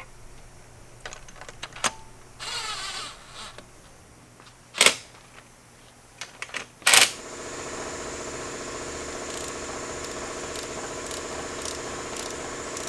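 Cordless power tool running bolts down on a cylinder head in short whirring bursts, with scattered clicks and two sharp metallic knocks. About seven seconds in, a steady mechanical hum starts and carries on.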